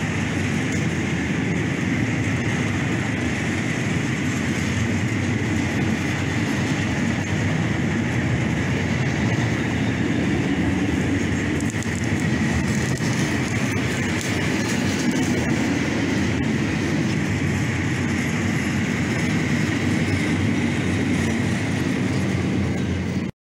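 Freight train of ballast hopper wagons rolling past, a steady rumble of wheels on rail with a steady high tone running through it. It cuts off suddenly near the end.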